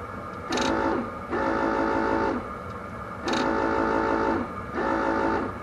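Electronic beeper sounding four times, each a steady tone of about a second that starts with a click: the switch plunger being pushed and released, closing the new brake light switch's contacts each time.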